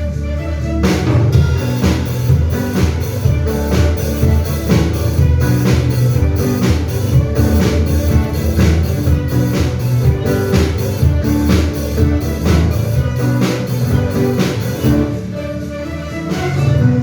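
A band playing a song with a steady beat of about two strokes a second over sustained chords. Near the end the beat stops, leaving a held chord that swells and then fades.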